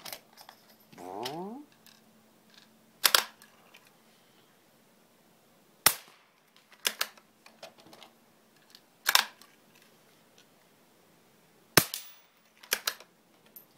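Two quiet, sharp shots from a Marlin Model 122 single-shot bolt-action .22 rifle firing CB short rounds, about six seconds apart. Between them are several smaller metallic clicks and clacks as the bolt is worked to reload.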